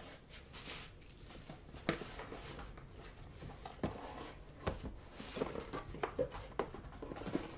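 Cardboard boxes and packing material being handled: a rustle, then a few light knocks and scrapes as a trading-card box is lifted out of a cardboard shipping case and set down on the table.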